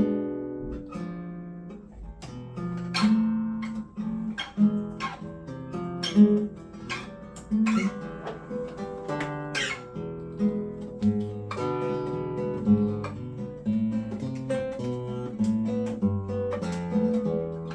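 Acoustic guitar being played, a continuous run of picked single notes and chords ringing out.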